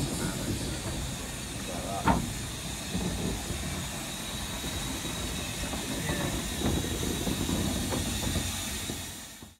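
Steam hissing steadily from a Stanier Black Five steam locomotive, No. 45231, over a low rumble. A single sharp knock about two seconds in is the loudest moment, and a few fainter knocks follow.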